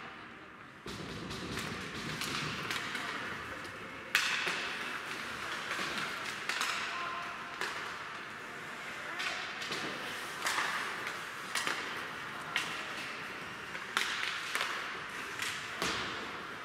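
Ice hockey play in a rink: skate blades scraping the ice with repeated sharp clacks of sticks and puck, one loud crack about four seconds in.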